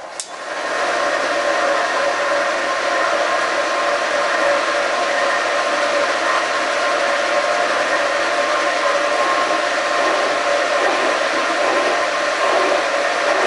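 Horizontal boring mill turning a 1 5/8-inch boring bar at about 70 RPM while a brazed carbide tool takes a hand-fed facing cut on a connecting rod. It is a steady mechanical drone with a few steady tones, rising to full level within the first second.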